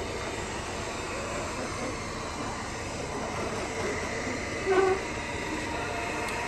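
Roomba robot vacuum running steadily, its motor and brushes whirring. About three-quarters of the way through, a brief pitched sound stands out as the loudest moment.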